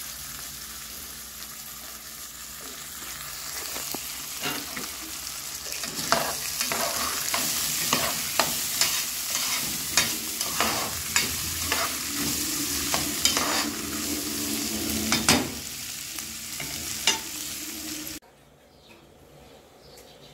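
Rice sizzling as it sautés in butter in a pan, stirred with a spoon that clicks and scrapes against the pan again and again. The sizzle grows louder partway through and cuts off suddenly near the end.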